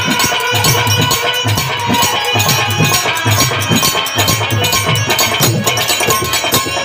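Instrumental passage of a Purvi folk song: wooden kartal clappers clacking fast over a steady drum beat, with a held melody line above.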